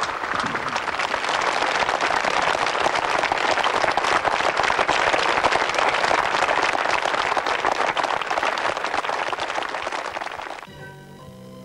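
A large crowd applauding, many hands clapping in a dense, steady patter. It cuts off suddenly near the end, and quieter music with held notes takes over.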